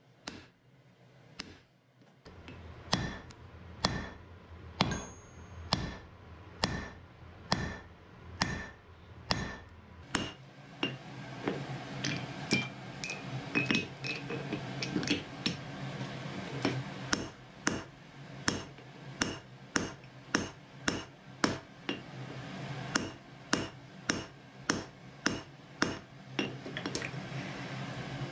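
Hand hammer striking red-hot wrought iron on a steel anvil in steady blows about once a second. In the middle there is a busier spell of lighter metallic clinks and taps before the regular blows resume.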